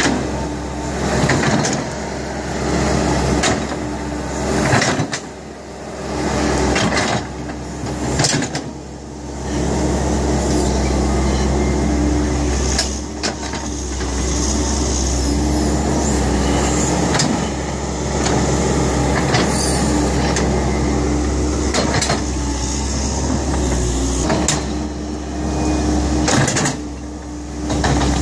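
Kobelco hydraulic excavator's diesel engine running, its loudness rising and falling every few seconds as the machine works, with scattered sharp knocks and clanks.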